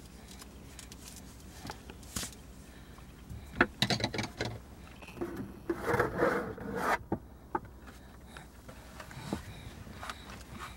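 Rustling and scraping close to the microphone, as the camera is handled, over a low steady outdoor rumble. A cluster of sharp clicks comes about three and a half to four and a half seconds in, and a louder rustle about six to seven seconds in.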